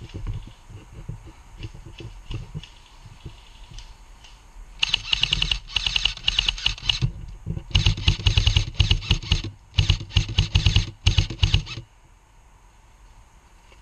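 Airsoft rifle firing full-auto in several long bursts of rapid clicks, starting about five seconds in and cutting off sharply near the end.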